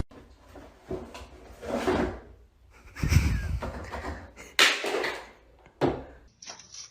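A series of knocks and bumps in a small room, about five of them, the sharpest one about four and a half seconds in and a short sharp click near six seconds.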